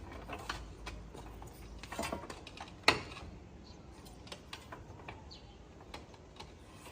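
Scattered light clicks and clinks of hard objects being handled, with one sharp knock about three seconds in.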